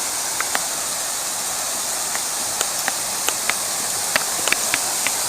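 Waterfall rushing as a steady hiss of falling water, with a scattering of short sharp clicks over it.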